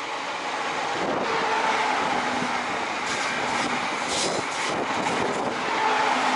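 Queensland Rail suburban electric train running past along the platform: a steady rumble and rush of wheels on rail, with a run of sharp clicks from the wheels over rail joints about halfway through.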